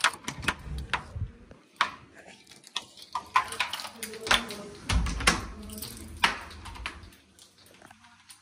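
A door being opened and shut: a click of the handle and latch, then several sharp knocks and clatters with rumbling handling noise.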